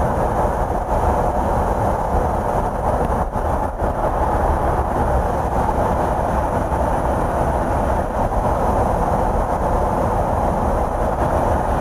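Steady in-flight drone of a KC-135 tanker, engine and rushing-air noise heard from inside the aircraft.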